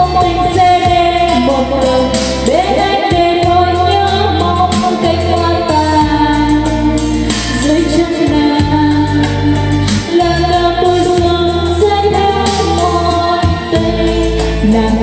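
A woman singing karaoke into a microphone over a backing track, played through a large portable trolley karaoke speaker with two 40 cm bass drivers. The bass is heavy and steady under the melody.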